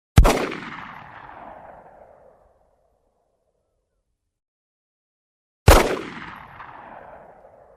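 Two single gunshots, about five and a half seconds apart, each a sharp crack followed by a long echoing tail that dies away over about two seconds.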